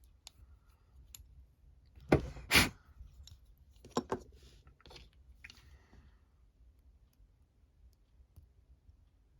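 Small hobby tools and parts clicking and knocking as they are handled on a workbench. Two louder knocks come close together about two seconds in, then a few lighter clicks.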